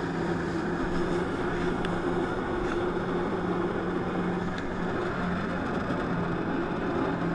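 Jet ski engine running steadily at a constant pitch, driving the water jet of a flyboard through its hose.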